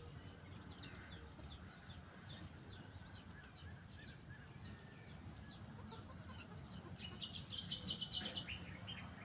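Birds chirping: many short, falling chirps, with a quick run of louder chirps about seven seconds in, over a faint low rumble.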